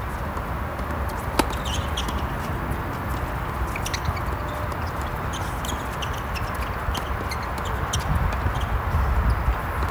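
Tennis balls struck by racquets during a doubles rally: a few sharp hits several seconds apart, the loudest about a second and a half in, over steady background noise.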